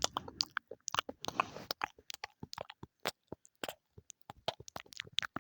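Close-miked ASMR mouth sounds: a quick, irregular run of wet tongue and lip clicks and smacks.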